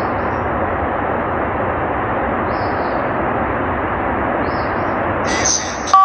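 Steady rushing, hiss-like noise at an even level, with faint short chirps above it every couple of seconds and a brief electronic beep right at the end.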